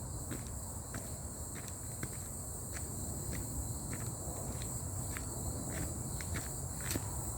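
Footsteps walking along a forest path at an even pace, about one and a half steps a second, over a steady high-pitched insect chorus.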